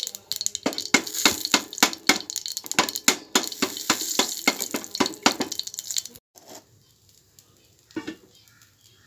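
A ladle stirs and scrapes a bubbling tomato-onion masala in a pressure cooker pot, with quick strokes several a second over a steady sizzle. The sound cuts off about six seconds in, and one soft knock follows near the end.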